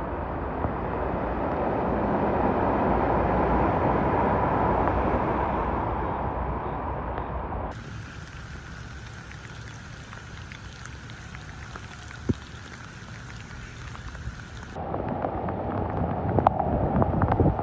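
Vehicles driving through deep floodwater: a rushing wash of water swells and fades as a pickup truck pushes its wake through. Then steady rain falls on a flooded street. Near the end, cars on a flooded road throw up spray, with sharp splashes.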